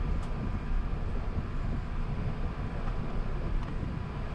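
Steady low rumble of an Airbus A380's cabin noise, heard from inside the cabin, with a faint steady tone above it.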